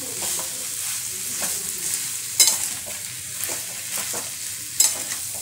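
Spatula stirring fish head and potato curry in a sizzling kadai: a steady frying hiss with sharp knocks and scrapes of the spatula against the pan, the loudest about halfway through and near the end.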